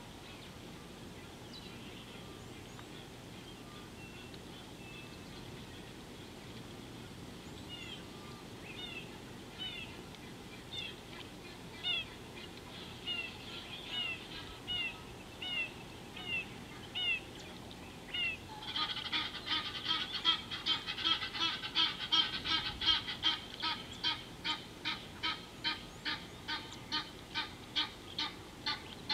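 A bird calling: a series of short repeated notes that grows louder, then about two-thirds of the way in a loud, rapid run of harsh, honking calls, about two or three a second.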